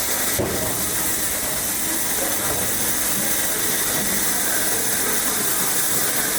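Steady, loud hiss of rushing air or gas from workshop machinery, with a single sharp click about half a second in.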